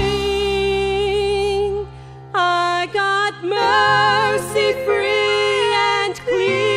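A woman singing a gospel song, holding long notes with vibrato over sustained band chords and bass, with a short break in the music about two seconds in.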